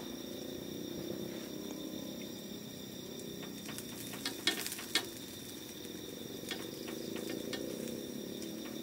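Skewered meat grilling over charcoal on a wire grill, with faint crackling and a few sharp clicks about halfway through, followed by scattered light ticks. Steady insect buzzing runs underneath.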